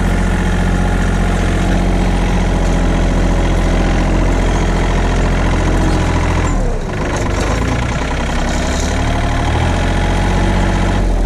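Farm tractor engine running steadily and loudly under load while pulling a vibrocultivator. About six and a half seconds in, the revs drop sharply, then climb back up over the next couple of seconds.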